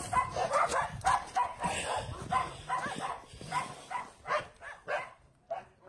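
A dog barking rapidly and repeatedly, about four short barks a second, growing fainter and sparser toward the end.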